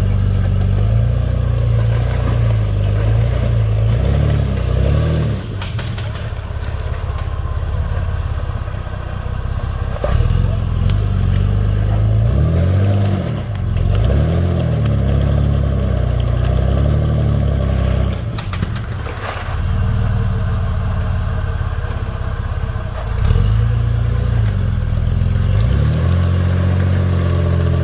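Jeep Wrangler TJ engine revving hard in repeated surges, the revs climbing and falling again and again as it works to climb up rocks under load.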